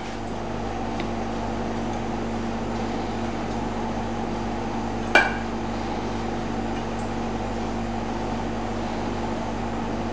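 Steady hum of kitchen machinery, with one sharp metallic clink about five seconds in.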